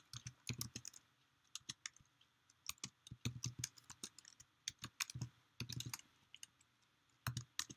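Computer keyboard typing: irregular runs of keystroke clicks with short pauses between them.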